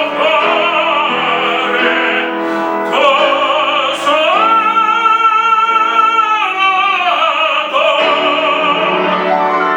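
Classical singing with wide vibrato over piano accompaniment, with one long held high note in the middle.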